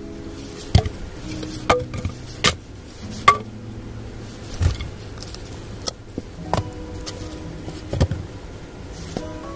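Sawn firewood logs being set down and stacked, knocking against one another and the floor in a series of separate thuds and knocks, about seven in all.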